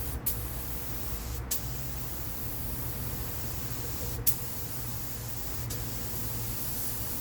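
Steady spraying hiss, broken off for an instant about four times, with a low uneven rumble underneath.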